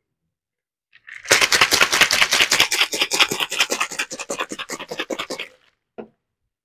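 Ice and carrot juice rattling hard inside a capped plastic shaker bottle as it is shaken fast, starting about a second in and stopping about a second before the end, followed by a single knock.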